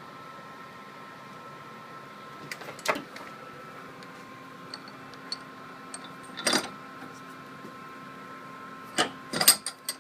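Sharp clicks and clacks of hand tools being handled during cable crimping: single ones about three and six and a half seconds in, and a quick run of several near the end, over a steady background hum.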